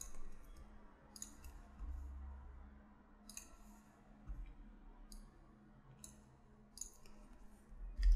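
Scattered clicks of a computer mouse and keyboard, about ten in all, some in quick pairs, over a faint low steady hum.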